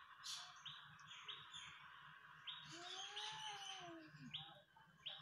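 A cat's faint low yowl, rising and falling about three seconds in, from two cats squared off to fight. It sits over birds chirping about once a second and a steady high background hum.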